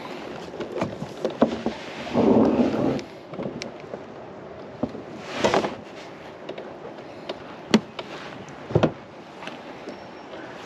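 Handling noises in a kayak as a freshly caught crappie is netted and lifted out of the landing net: a scraping rustle about two seconds in, then scattered knocks and sharp clicks on the hull.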